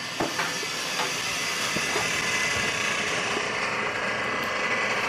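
A steady hiss that grows slightly louder, with a few faint soft knocks.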